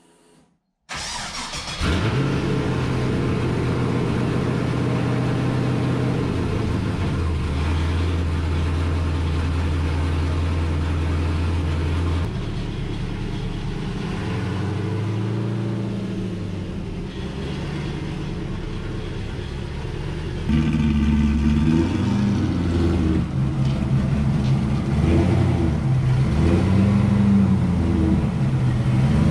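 A classic Camaro's V8 cranks and fires about a second in, idles steadily, then runs with changing revs as the car is moved. From about two-thirds of the way through, a louder V8 from the C5 Corvette Z06 runs with revs rising and falling as it drives in; the owner believes this engine may be a built 408 stroker with LS3 heads.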